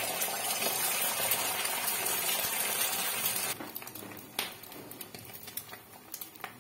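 Beaten egg sizzling in hot oil on a flat tawa: a loud, steady sizzle that drops off suddenly about three and a half seconds in, leaving fainter scattered crackles.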